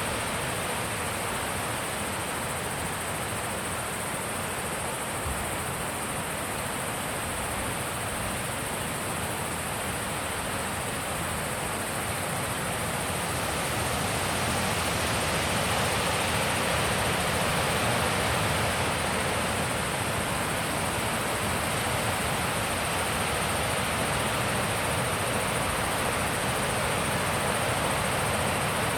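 Wind blowing steadily, a rushing noise that grows a little louder about halfway through, with a thin, steady, high-pitched tone underneath.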